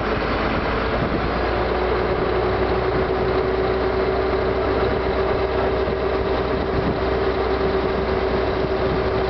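Truck cab interior while driving: the diesel engine drones steadily along with road noise, with a constant hum over it.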